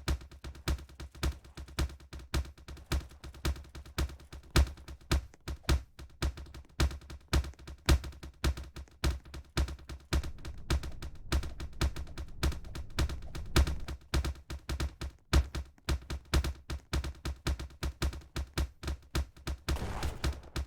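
A fast, irregular run of sharp claps or clicks, several a second, of unknown origin, which the uploader hears as someone clapping.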